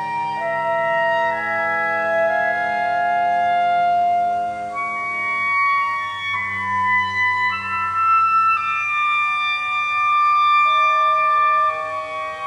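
Contemporary chamber music for two violins, cello, clarinet and live interactive electronics: overlapping long held notes that step to new pitches every second or so, with a lower drone underneath for the first half.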